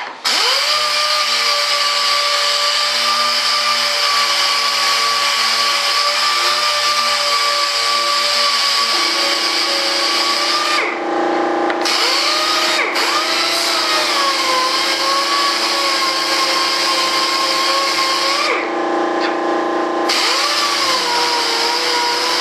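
Small handheld round-pad power sander running steadily on the top seam of a fiberglassed model-jet fuselage. Its high whine dips and wavers several times as it is pressed into the work.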